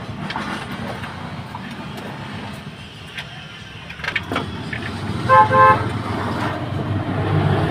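Vehicle horn giving two short toots about five seconds in, over steady engine and traffic noise, with a few short clicks before it.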